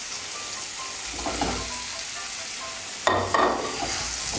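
Spice paste sizzling in oil in a non-stick kadai while a spatula stirs and scrapes it; about three seconds in, fried potato and cauliflower pieces are tipped into the pan with a sudden, louder burst of sizzling.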